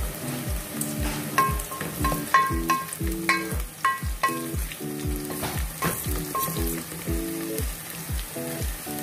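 Sliced onions sizzling in oil in an aluminium pot while a wooden spoon stirs them, clacking against the pot's side with short ringing knocks several times in the first half. Background music with a steady beat plays throughout.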